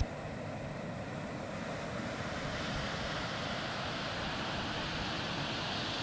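Steady rushing of water at a dam, an even hiss with no breaks.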